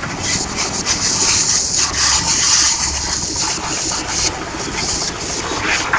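Water jet from a hand-held hose spraying onto motorcycle plastic side panels, a steady hiss that eases off about four seconds in.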